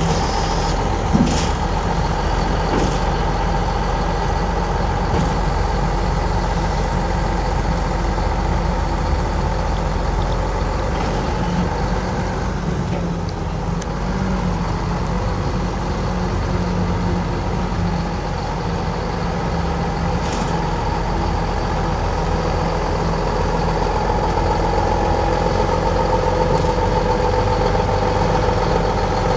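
Mack E7 12-litre inline-six diesel of a semi tractor running steadily as the truck moves slowly pulling a trailer, a little louder near the end as it comes closer.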